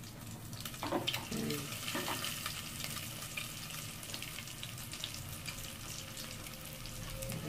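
Chicken pieces sizzling in deep hot oil in a stainless pot, a steady hiss with fine crackles that picks up about a second in, after a piece is lowered into the oil.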